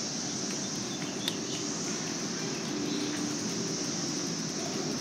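Steady, high-pitched drone of insects in the street trees over a low hum of street traffic, with one sharp click about a second in.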